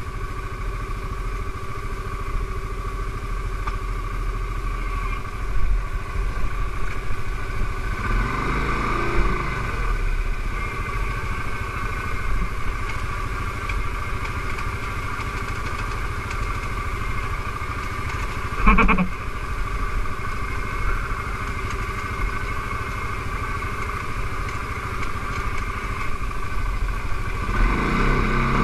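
CFmoto X5 ATV engine idling steadily with a high whine, revving up briefly about eight seconds in and again near the end. A short sharp sound about two-thirds of the way through.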